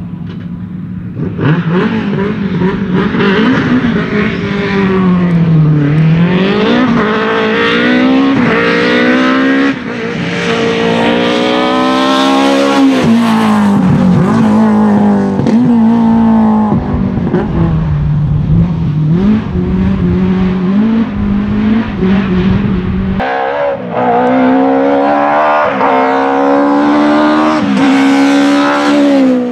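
BMW E30 M3 Group A rally cars' S14 2.3-litre straight-four engines at high revs. Pitch climbs and drops over and over as the cars accelerate, change gear and lift, heard in separate passes joined by abrupt cuts about ten seconds in and again about two-thirds of the way through.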